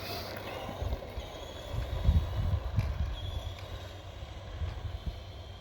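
Wind buffeting the microphone in gusts, with a faint, steady, high whine from the electric motor of a radio-controlled monster truck driving away.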